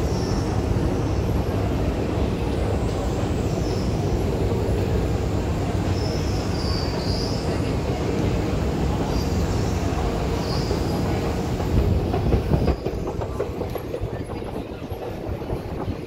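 Station escalator running under the rider: a steady mechanical rumble with short high squeaks every second or two. About 13 seconds in it drops away to a quieter, more open background.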